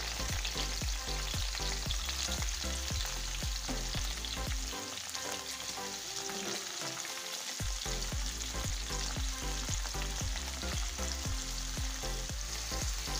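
Sliced onions, green chillies and tomatoes sizzling in hot coconut oil in a nonstick pan, a steady frying hiss full of small crackles.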